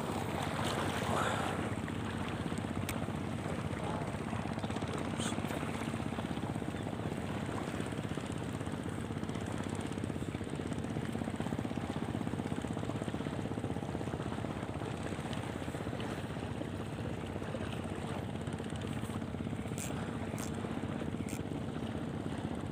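Small boat's engine running steadily under way, an even drone with a constant pitch.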